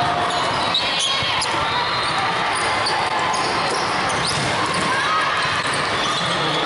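Indoor volleyball rally in a large hall: ball hits, with a sharp one just under a second in, and short shoe squeaks on the court over a steady din of crowd chatter.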